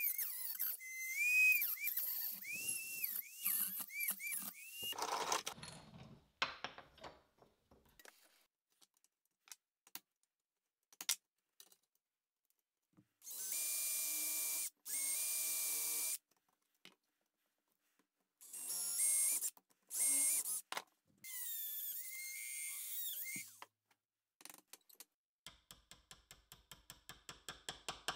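A handheld rotary tool with a cut-off disc whines, its pitch wavering as it cuts a thin metal sheet. In the middle a power drill runs in several short bursts, boring into a wooden handle. Near the end a small hammer taps a metal pin in with quick light strikes, about five a second.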